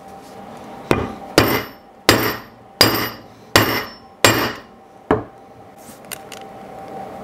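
Hammer blows on a steel rivet setting tool held on a copper rivet through leather on a steel block: seven strikes about two-thirds of a second apart, the last one lighter, each with a short high metallic ring. The blows spread the freshly nipped rivet post over its washer before doming.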